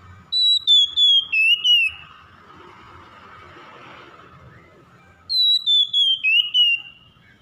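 Oriental magpie-robin singing: two loud phrases of clear whistled notes, each a quick run of about five notes that steps slightly downward in pitch.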